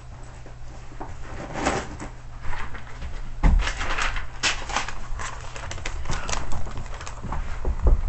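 Irregular knocks, clicks and rustles of things being handled and moved about, over a steady low hum.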